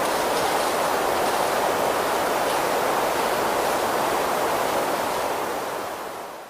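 Steady rushing noise with no distinct tones or knocks, fading out just before the end.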